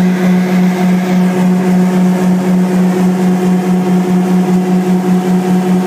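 Braud 9090X grape harvester running: a loud, steady machine drone with a strong hum, its level pulsing evenly a few times a second.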